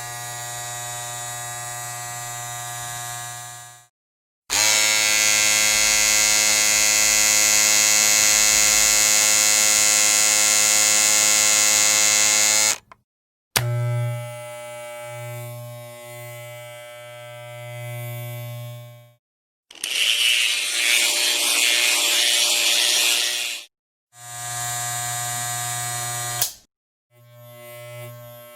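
A string of separate electric buzzing sounds, each a few seconds long with short silences between them. The longest, about eight seconds, is the loudest and brightest; a later one throbs on and off, and another is a harsher, noisier rasp.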